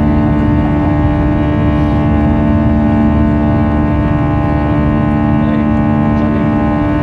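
Airbus A321 turbofan engines at climb thrust just after takeoff, heard inside the cabin over the wing: a steady, loud drone with several unchanging tones over a low rumble.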